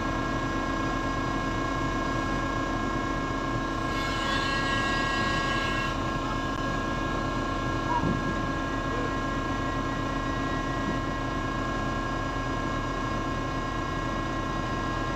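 Hydraulic machinery of an old ship's deck crane running steadily, heard from inside the operator's cab as a constant mechanical hum with several steady tones. A brief hiss rises and fades about four seconds in.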